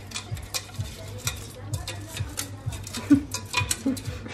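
Metal kitchen utensils clinking and scraping against a pot, in irregular sharp knocks a few times a second.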